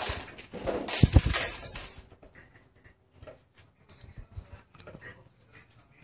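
A loud rustle with a thump close to the microphone in the first two seconds, then light scattered clicks and scuffles of puppies' paws on a brick floor as they play.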